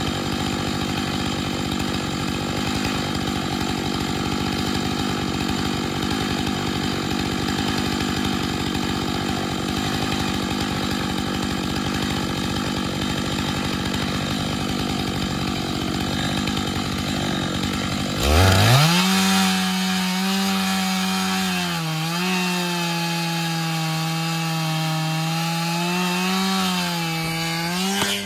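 Chainsaw on a chainsaw mill cutting a slab lengthwise through a log, the engine held at full throttle under load. About 18 seconds in, the engine note jumps up and runs clean at high revs with the cutting noise gone, wavering a little, then falls near the end: the saw has stopped cutting, which the sawyer traces to a nail in the log that the chain ate through.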